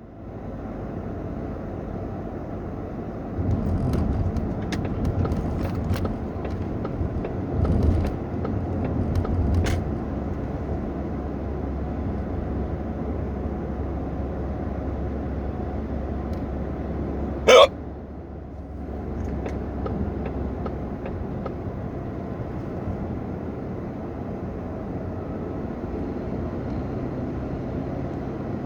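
A single sharp hiccup about two-thirds of the way through, from a person with a bout of hiccups that has gone on for a long time. Underneath runs the steady low rumble of a car being driven, uneven in the first third.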